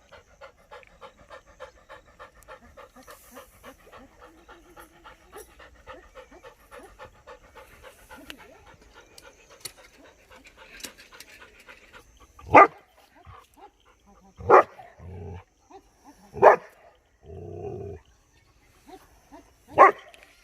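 German Shepherd puppy panting fast and evenly, about four breaths a second. About twelve seconds in, the panting stops and the puppy barks four times, single sharp barks about two seconds apart, with two lower drawn-out sounds between them.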